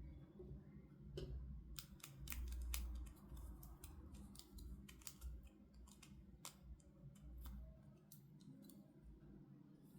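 Faint scissors snipping at toy packaging: a scatter of sharp, irregular snips and clicks, thickest in the first half and thinning out toward the end.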